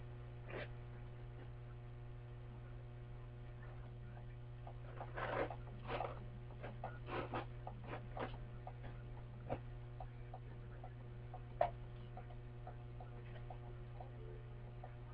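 Steady low electrical hum, with faint scattered rustles and taps from hands handling long hair.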